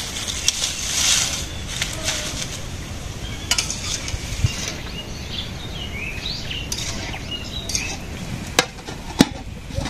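Steel cooking utensils clinking against stainless-steel bowls and pots, a few sharp separate clinks, with short bird chirps in the middle.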